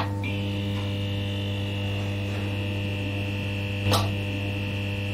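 Electrical neon-sign hum sound effect: a steady low buzz with a thin high whine over it, a click as it starts and a brief crackle about four seconds in.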